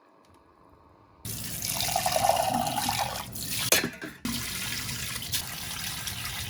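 Water rushing with a steady loud hiss that starts abruptly about a second in, with a couple of brief knocks about halfway through.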